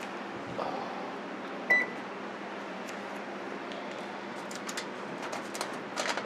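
A single short electronic beep from the kitchen oven, about two seconds in, over a steady background hiss. Near the end come light crinkling and clicking as the foil-covered baking dish is handled.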